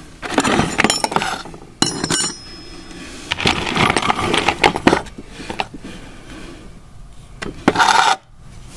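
Old rusty metal hand tools clinking and rattling against each other in a wooden toolbox as a hand digs through them, in several separate bursts; one knock about two seconds in leaves a short metallic ring.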